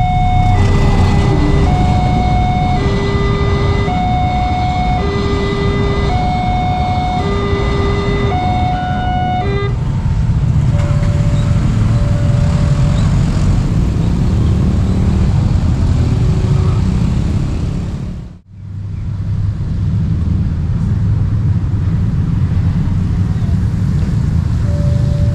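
Railway level-crossing electronic warning siren sounding a repeating two-note hi-lo alarm, about one cycle every two seconds, signalling that a train is approaching; it stops about ten seconds in. A steady loud low rumble of passing vehicles follows, with a brief dropout after about eighteen seconds.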